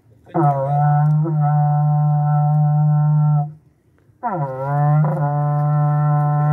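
Berrante, the Brazilian ox-horn cattle-call trumpet, blown by a beginner in two long steady notes, each opening with a short upward slide into pitch; the second note starts a few seconds in and runs on past the end.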